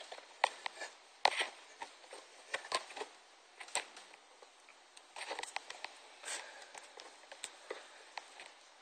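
Scattered light clicks and taps of hands handling small parts and tools, over faint room hiss.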